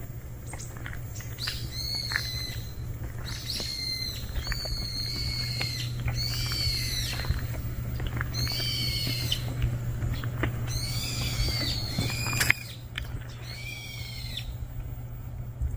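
An animal calling over and over in short, high-pitched cries, each rising and falling in pitch, about ten in all. A sharp click near the end.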